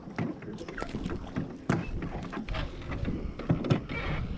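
Small waves lapping and sloshing against a wooden dock in irregular little splashes and clicks, over a low rumble of wind on the microphone.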